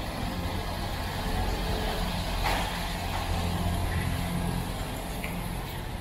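A motor vehicle's engine running close by in street traffic, a steady low rumble, with a brief louder rush about halfway through.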